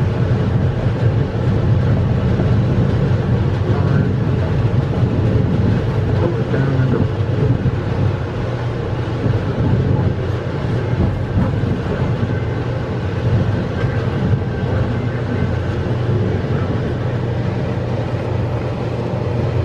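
Amtrak passenger train rolling along, heard from its rear car: a steady low rumble of wheels on the rails.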